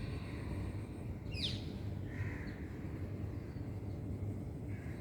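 A bird calls over a steady low background hum: a sharp, quickly falling note about a second and a half in, then a softer call just after.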